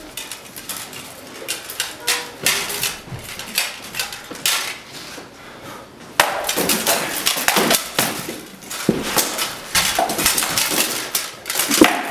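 Rattan weapons striking steel armour, helmets and a shield in armoured combat: a quick series of sharp cracks and clanks, coming thicker and louder from about six seconds in.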